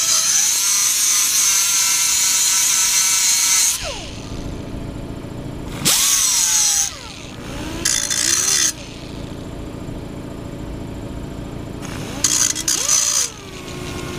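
Small handheld rotary grinder sharpening the dull edge of a steel lawn mower blade. First comes one long grinding pass of about four seconds, then three shorter passes of about a second each. Between passes the motor whine drops and climbs again.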